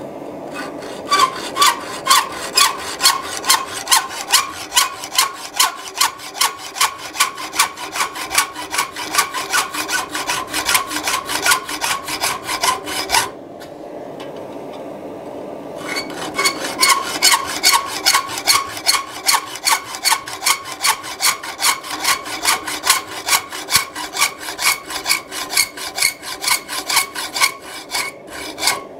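Hacksaw cutting through the knuckle of a forged metal hasp, in steady back-and-forth strokes at about two a second. The sawing stops for a couple of seconds about halfway, then carries on at the same pace.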